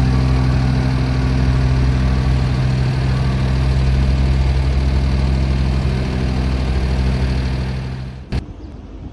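Large engine of asphalt paving equipment running steadily at a constant speed. It cuts off abruptly about eight seconds in, with a short click, leaving wind noise on the microphone.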